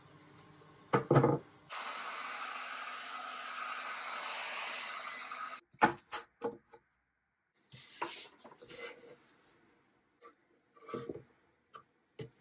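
A hand tool scraping a veneered wooden door panel along its inlay strip: a steady scraping stretch of a few seconds that stops suddenly, then a series of short separate strokes. Two sharp knocks about a second in are the loudest sounds.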